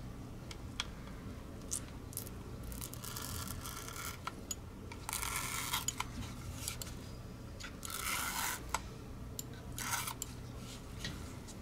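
Thin metal tool scraping under the adhesive skates on the underside of a Logitech G Pro X Superlight mouse, peeling them off the plastic shell in four short scraping, tearing bursts with small clicks between.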